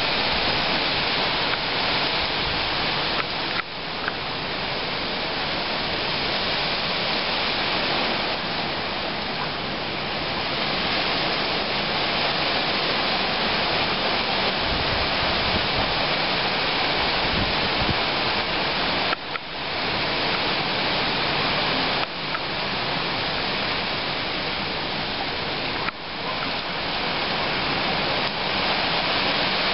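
Tropical-storm wind rushing through trees, a steady loud hiss that dips briefly four times.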